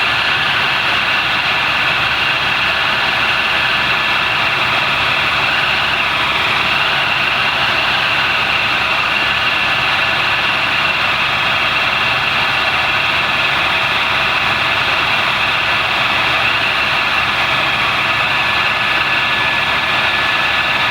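Helicopter in flight: a steady, loud engine and rotor noise with a constant high whine over it.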